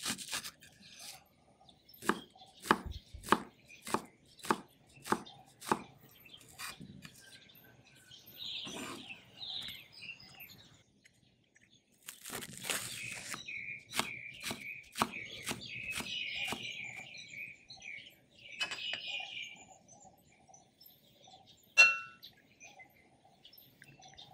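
Chef's knife slicing a leek on a wooden cutting board: a run of crisp chops about two a second, a pause, then a second run. Birds chirp in the background, and near the end comes one sharp clink with a short ring.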